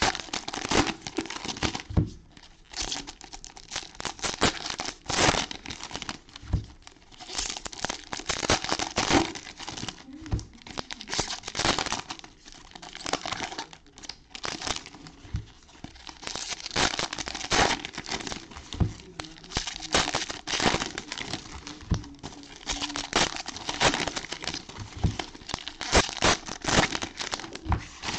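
Baseball card pack wrappers being torn open and crinkled by hand, in irregular bursts of crinkling and tearing with short pauses between.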